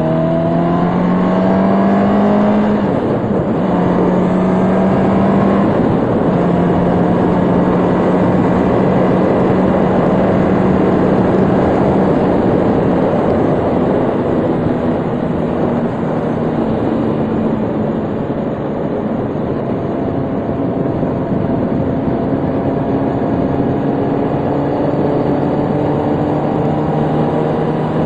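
Motorcycle engine under way, its pitch rising over the first couple of seconds, dipping about three seconds in, then holding a fairly steady cruise and easing somewhat lower in the second half. Heavy wind rush on the microphone runs under it throughout.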